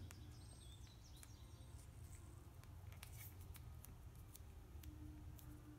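Near silence with faint, scattered clicks and rustles as hands fold and work a thin wire wrapped in electrical tape.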